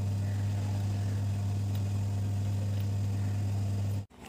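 Steady low electrical hum with a weaker overtone above it, unchanging in level, that cuts off abruptly about four seconds in.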